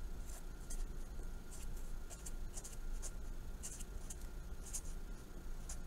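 Pen scratching across paper while handwriting words, as a string of short, quick, hissy strokes with brief pauses between them.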